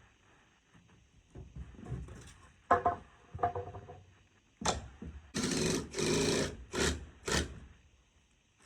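Power drill/driver running in several short bursts, about a second each, in the second half, with knocks and rattles before them: backing the screws out of the barn door's bottom hinge.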